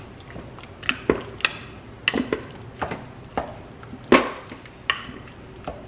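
Wooden spoon knocking and scraping inside a crock pot while breaking up cooked chicken: irregular knocks, the loudest about four seconds in.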